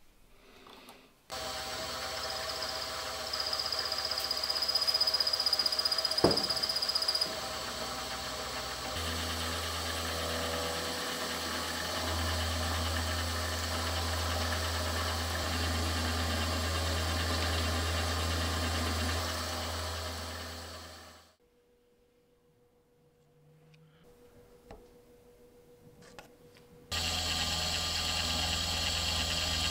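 Milling machine running with a small end mill cutting into an aluminium part, a steady machine hum with the cutting noise on top. It stops about two-thirds of the way through and starts up again a few seconds before the end.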